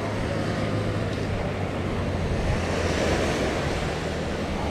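Sea surf washing on a sandy beach, a steady rushing noise, with wind buffeting the microphone and a low steady hum underneath.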